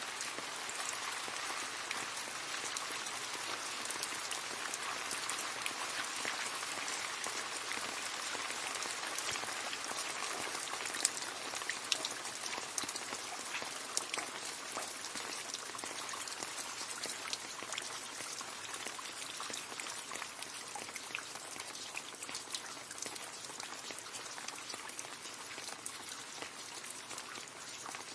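Rain falling into a puddle: a steady patter of drops with many separate little splashes, easing slightly toward the end.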